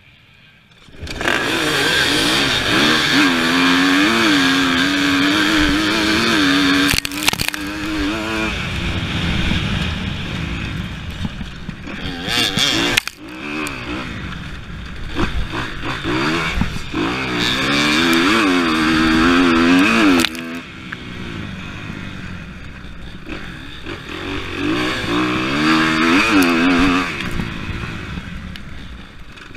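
Dirt bike engines burst in about a second in as the row of bikes launches, then the rider's own off-road motorcycle runs hard, its pitch climbing and dropping repeatedly as it is revved through the gears and off the throttle.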